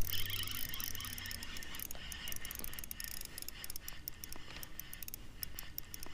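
Spinning fishing reel giving off rapid, irregular clicking and ticking as line is worked, beginning abruptly and running on steadily.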